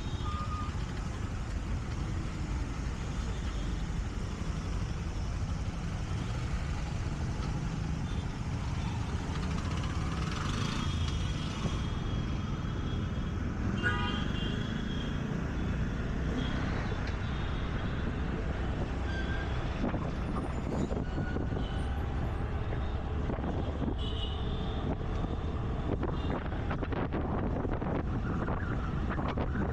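Scooter ride through dense city traffic, heard from the rider's seat: a steady low rumble of engine, tyres and wind on the microphone, with passing vehicles and several short horn toots from the traffic around.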